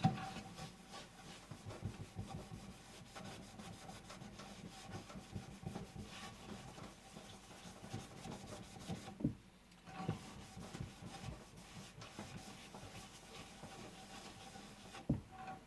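Rubbing by hand on a toaster oven's glass door, working oil into baked-on grease, with many quick irregular strokes and a short pause about nine seconds in.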